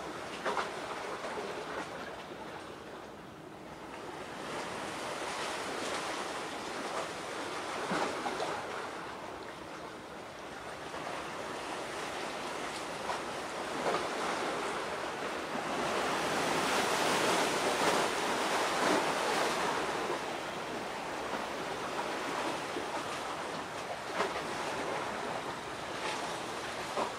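Sea waves washing on the shore: a steady rush that swells and eases over several seconds, loudest a little past the middle.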